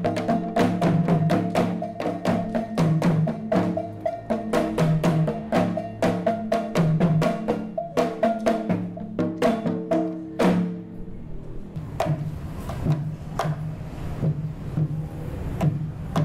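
Live percussion music: struck pitched percussion playing quick, ringing notes in a dense rhythm, thinning about ten seconds in to sparse strikes over a low steady tone.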